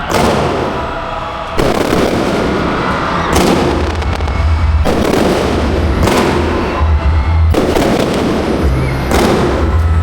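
Fireworks bursting at close range, a loud report about every second and a half, each followed by a crackling tail, with music playing underneath.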